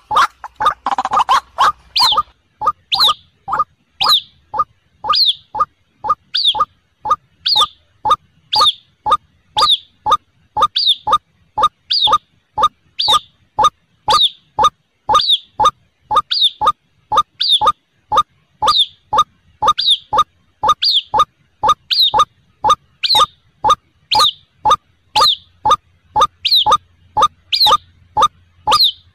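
White-breasted waterhen calling: a harsher, denser burst for about the first two seconds, then a fast, even run of short repeated notes, about two or three a second, each second or so topped by a sharp higher note.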